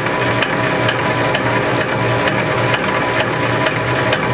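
South Bend 10K lathe running with a fly cutter in the four-jaw chuck, taking an interrupted cut across an aluminum bar: a steady motor and belt hum with a sharp tick about twice a second as the cutter strikes the metal once each turn.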